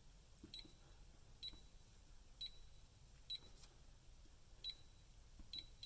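Electronic keypad lock on a safe door giving six short, faint, high beeps about a second apart as the combination is keyed in.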